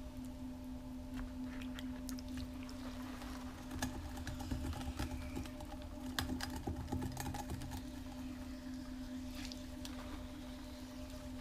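Electric pottery wheel motor humming steadily at speed, with the wet squish and slap of clay under the potter's hands as it is coned up and pressed back down.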